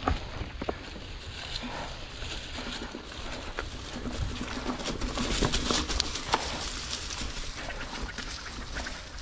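Mountain bike tyres rolling over dry fallen leaves on a dirt trail: a crunching, crackling haze with many small irregular knocks over bumps and a low rumble underneath.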